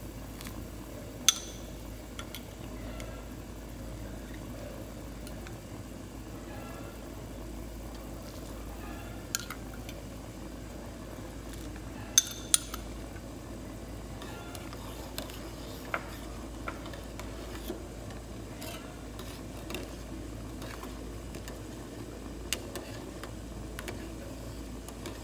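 Minced pork boiling in a pot of water, a steady bubbling, with a handful of sharp metal clinks of a ladle against the pot, two of them in quick succession about halfway through.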